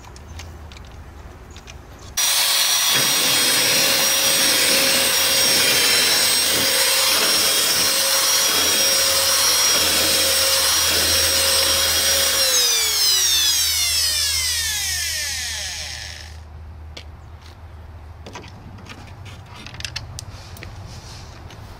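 Electric power tool, likely a drill, switched on abruptly about two seconds in, running at a steady high speed with a constant whine for about ten seconds. It is then released and coasts down over a few seconds, its pitch falling, before a few faint clicks and handling noises.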